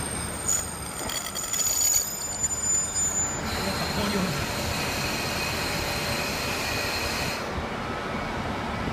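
KiHa 40 series diesel railcar running slowly into the platform and drawing up, its engine rumbling under thin, high-pitched squeals from the running gear. The squeals change pitch about a third of the way in and stop near the end.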